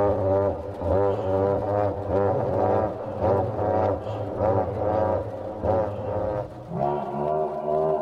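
Reconstructed Tyrannosaurus rex call: a deep, closed-mouth rumble with a droning low tone and wavering, pulsing overtones, swelling a few times a second. Its pattern changes about a second before the end.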